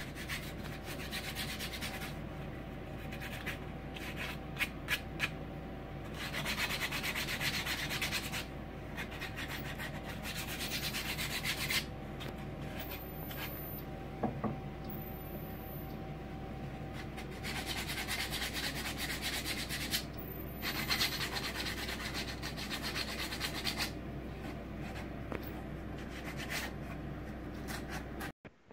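Sandpaper rubbed back and forth by hand on a wooden board, in stretches of scratchy strokes a few seconds long with short pauses between. A steady low hum runs underneath.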